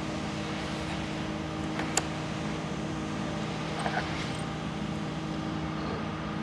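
Steady hum of workshop machinery or ventilation, with one sharp click about two seconds in and a few faint knocks near four seconds as a C-clamp and wood blocks are set on a snowboard.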